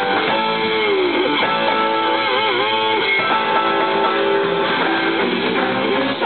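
Live rock band playing, led by an electric guitar holding long notes that slide and waver with vibrato.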